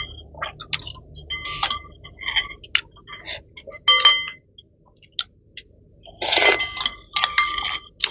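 Metal spoons and forks clinking against glass bowls of noodle soup, a scatter of sharp clinks, some ringing briefly, with noodles being slurped about six seconds in.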